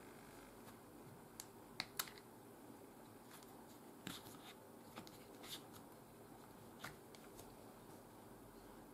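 Small clicks as the battery cover of a Lamax X7.1 Naos action camera is opened and the battery slid out: a few sharp clicks about two seconds in, then softer clicks and handling noises.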